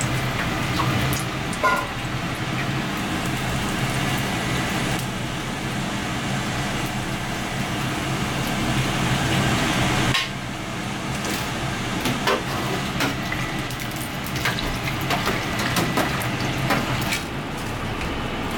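Tempura frying in a deep fryer: steady oil sizzle over a low hum. The sizzle drops off about ten seconds in, leaving scattered clinks and taps as a metal tray and a plate are handled.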